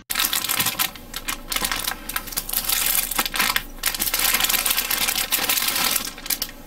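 Hard plastic model-kit runners (sprues) clicking and clattering as they are handled and shuffled: a rapid, irregular run of light clicks and clacks.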